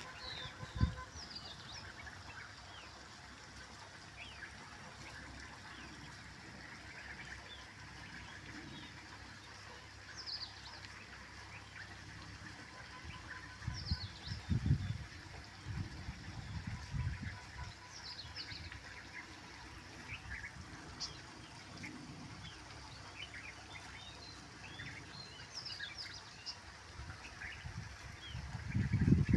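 Small birds chirping intermittently, short high calls scattered through a steady faint outdoor background. Low rumbling thuds break in a few times, around the middle and at the end.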